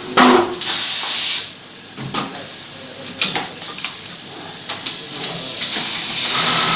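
Clicks, knocks and a short hiss from a sewing machine being set up. Near the end the machine starts running with a steady whine.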